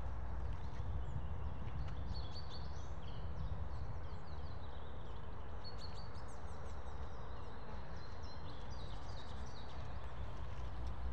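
Small birds chirping and calling over a steady low rumble.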